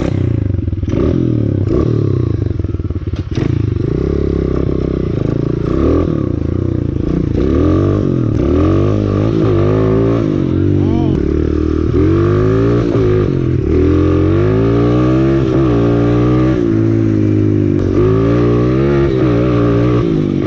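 125cc dirt bike engine running, fairly steady at first, then from about seven seconds in revving up and down over and over as the bike is ridden.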